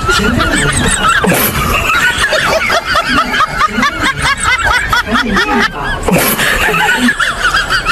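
High-pitched laughter, rapid and continuous, with a short break about six seconds in.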